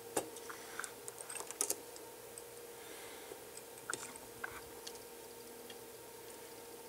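Small plastic and metal clicks and taps as multimeter test leads are handled against an electronics module, clustered in the first two seconds with a few more around the middle. A faint steady hum runs underneath.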